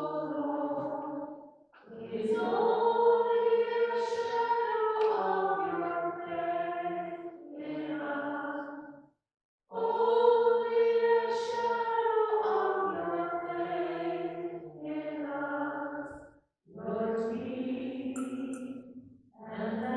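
A hymn sung without accompaniment, most likely the Communion hymn, in long held phrases. The singing stops completely for short breaths about two seconds in, about nine and a half seconds in, and about sixteen seconds in.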